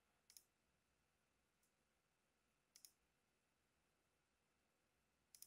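Near silence broken by faint computer mouse clicks, three quick pairs about two and a half seconds apart.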